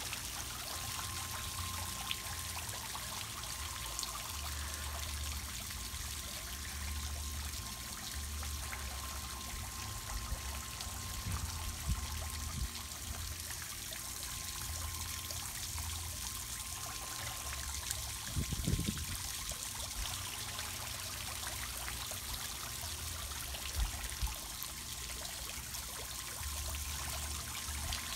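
Backyard pond's spray fountain and small rock waterfall: water trickling and splashing steadily into the pond.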